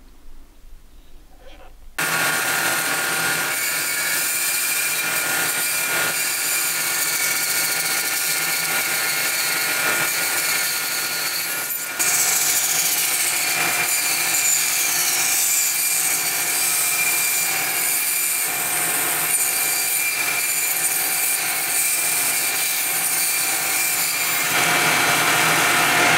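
Bandsaw running and cutting a thick ash slab along a curve: a steady machine whine over the hiss of the blade in the wood. It starts suddenly about two seconds in and steps up louder about halfway through.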